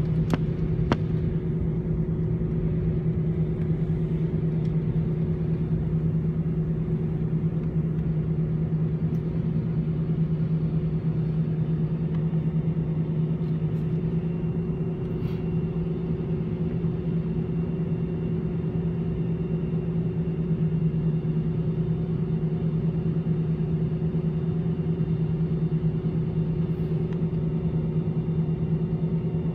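Airbus A318's CFM56-5B jet engines running at idle during taxi, heard from inside the cabin: a steady hum with two low droning tones that do not rise. A couple of light clicks come within the first second.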